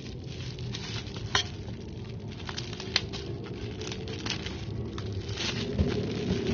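Clear plastic wrapping crinkling and rustling as hands handle an exhaust pipe wrapped in plastic film, with a couple of sharper crackles.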